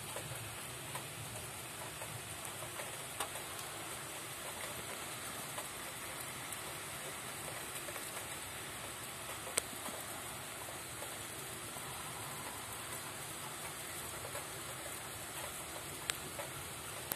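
Rain falling steadily during a thunderstorm, with scattered sharp ticks of drops hitting a hard surface; two louder ticks come about halfway through and near the end.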